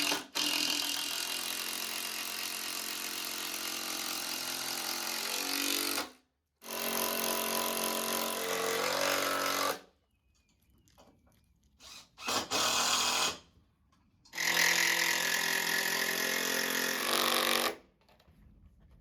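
Power drill running in four runs, two long, one short and a last of about three and a half seconds, with a steady motor whine between pauses.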